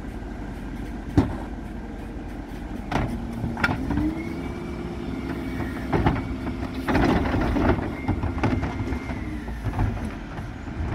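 Refuse truck's Terberg bin lift raising and tipping two wheelie bins over the hopper. The hydraulic whine rises about three seconds in, holds, and drops away near the end, over the truck's running engine. Sharp knocks come as the bins are handled and lifted, and a clatter follows as they are tipped.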